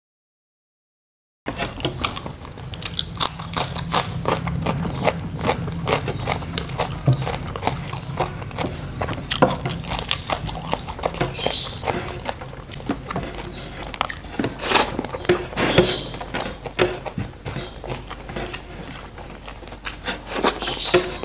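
Close-miked eating sounds of a man eating rice and side dishes with his hands: wet chewing, lip smacks and many small clicks. The sound cuts out completely for the first second or so, then runs on.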